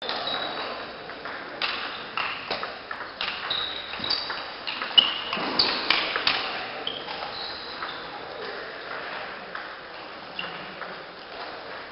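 Table tennis rally: the celluloid ball clicking off the players' rubber-faced bats and pinging on the table, a quick run of sharp clicks and short high pings through the first half. After that only a few single taps of the ball over the hum of the sports hall.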